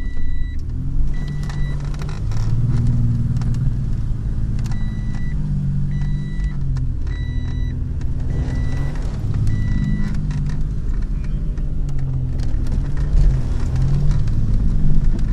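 A 4x4's engine heard from inside the cabin, its revs rising and falling as it drives along a muddy track through puddles, with rattles and knocks from the body. A short electronic beep sounds again and again at uneven intervals, stopping about ten seconds in.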